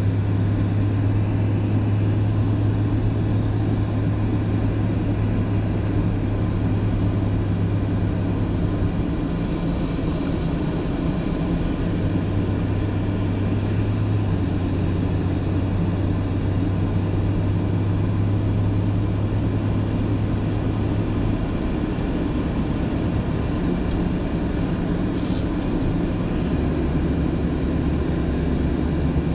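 A car's engine and tyre noise heard from inside the cabin at track speed: a steady low drone that shifts a few times as the throttle changes.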